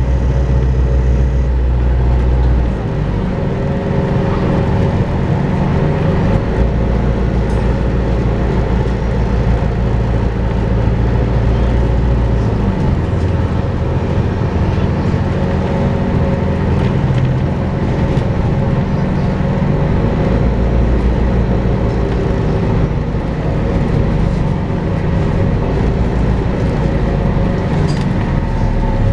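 Volvo B5LH hybrid diesel-electric double-decker bus running, with a steady vacuum-cleaner-like whine ('hoovering') over the drivetrain. The deep engine rumble rises and falls a few times as the bus changes speed.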